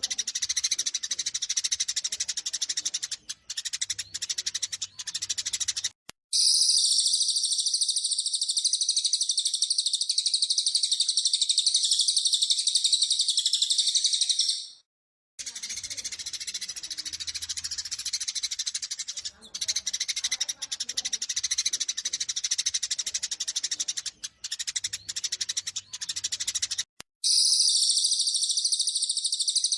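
Eurasian tree sparrows chirping and chattering in fighting mode, from a looped lure recording for caged sparrows. Looser chirping over a background hiss alternates with stretches of dense, rapid, high chirping that cut in about six seconds in, drop out briefly near the middle, and cut in again near the end.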